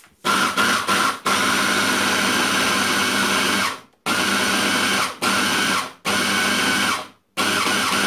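Arçelik 700-watt hand blender motor driving its chopper bowl, crushing partly thawed frozen strawberries with sugar. It runs in pulses: a few quick bursts in the first second, one run of about two and a half seconds, then runs of about a second with short breaks between them.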